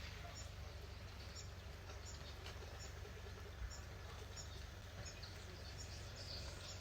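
Faint outdoor ambience: a steady low rumble with small birds chirping, short high chirps repeating every half second or so.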